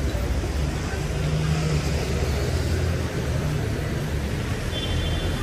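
Street traffic: vehicle engines rumbling steadily, with tyre noise from the road.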